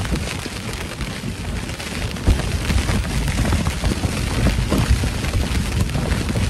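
Strong, gusty wind buffeting the microphone, with a sharp gust about two seconds in.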